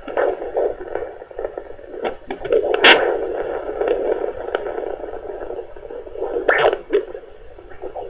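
Handheld pocket fetal Doppler's speaker playing a fetal heartbeat as a fast whooshing pulse, at about 125 beats a minute, under steady static hiss with several sharp crackles.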